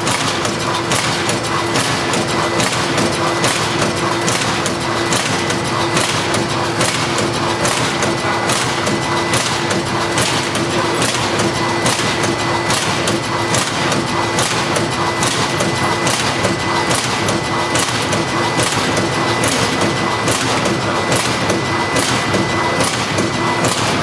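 Automatic horizontal sachet filling and packing machine running: a steady mechanical hum and whine with an even clacking about twice a second.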